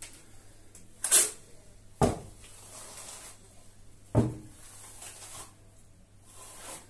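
Steel plastering trowel working wet base-coat plaster on a wall. There is a scraping swipe about a second in and two sharp knocks of the trowel at about two and four seconds, with softer trowel sweeps between them.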